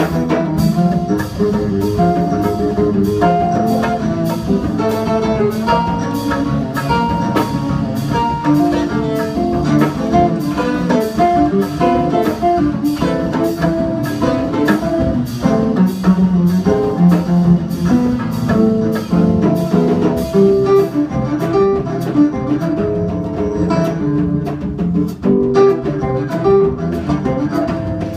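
Instrumental samba played live by cello, nylon-string acoustic guitar and drum kit: a melody over guitar chords, with a steady beat from the cymbals and drums.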